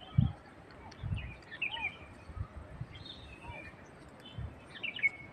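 Small birds chirping in short sliding calls, with a few low thumps of footsteps on stone paving, the loudest about a quarter-second in.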